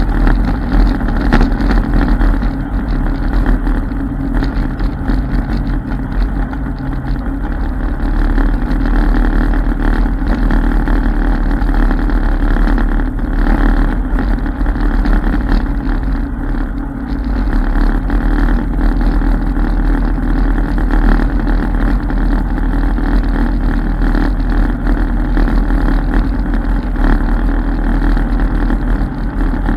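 ATV engine running steadily under way along a dirt trail, with a brief dip in loudness a little past the middle.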